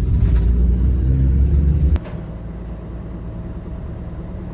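Shuttle bus engine and road rumble heard from inside the moving bus, loud and low. About two seconds in it cuts off suddenly to a quieter steady hum.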